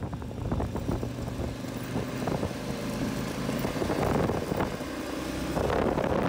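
Adventure motorcycle's engine running steadily while riding on a gravel road, with wind noise on the microphone that grows louder near the end.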